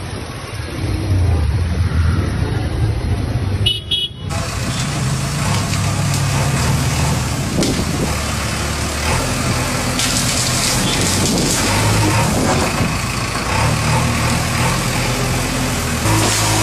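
Diesel engine of a JCB backhoe loader running steadily as its front bucket shoves fallen tree branches along the street, with voices around it. For the first four seconds or so, before an abrupt change, there is a different street recording with a lower engine hum.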